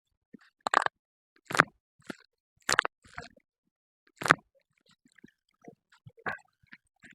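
A series of short, sharp cracks and crunches, about half a dozen at irregular intervals, the loudest about four seconds in: spinal joints popping during a chiropractic spine adjustment.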